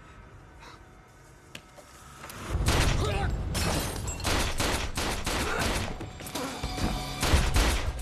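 Rapid pistol gunfire in a film shootout: many shots in quick succession begin about two and a half seconds in, after a quieter opening.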